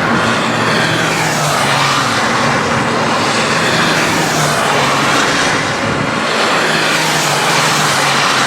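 Citroën C1 race cars running on a wet track, their engine notes rising and falling as they pass, over a steady hiss of rain and spray.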